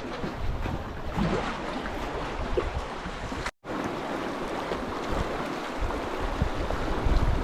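Wind buffeting the microphone over sea waves washing, with a brief cut to silence about halfway through.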